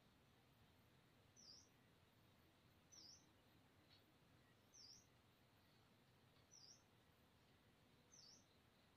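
Faint, high, short chirps from a small bird, each a quick down-and-up note, five times at intervals of about a second and a half to two seconds, over faint background hiss.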